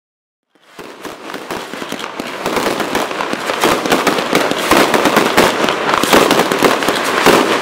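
Aerial fireworks display: a dense, rapid stream of crackling and popping shell bursts, fading in about half a second in and building to full loudness by about two and a half seconds.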